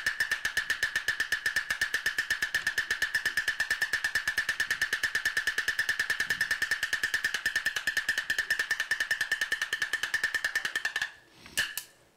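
Glove-puppet theatre percussion accompaniment: a fast, even roll of about ten strikes a second on a high-pitched percussion instrument. It stops suddenly about eleven seconds in, and a couple of lone strikes follow.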